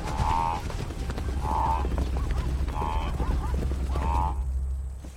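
A bush fire burning, with a steady low rumble and a dense crackle. Over it an animal, most likely a bird, gives four short calls about a second and a quarter apart. The rumble drops away near the end.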